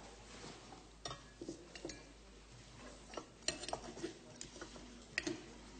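Knife and fork clinking against a plate while food is cut: a scattering of short, light clinks, the sharpest about three and a half seconds in and again near the end.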